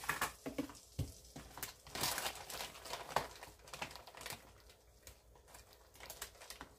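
A plastic package of sliced deli ham crinkling and tearing as it is handled and opened, in short irregular bursts that grow quieter in the second half.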